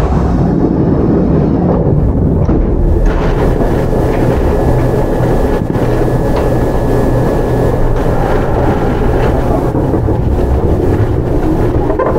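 Running noise inside a Kintetsu 8810-series field-chopper-controlled electric train: a steady rumble of wheels on rail, with a faint steady whine and a few light clicks.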